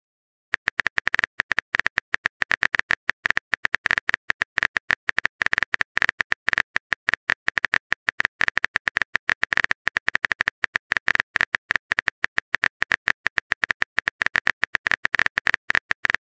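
Phone keyboard typing sound effect: a rapid, uneven run of tapping clicks as a text message is typed out, starting about half a second in.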